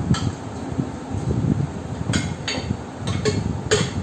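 Several sharp clinks and knocks of a metal-and-glass chandelier shade being handled and fitted onto its holder, most of them in the second half, with low rubbing and handling noise in between.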